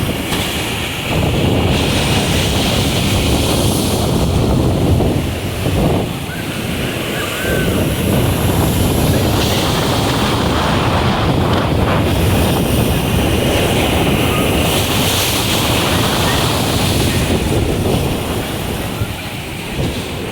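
Black Sea surf washing onto the shore, with the hiss of the waves swelling and easing every few seconds, and wind buffeting the microphone.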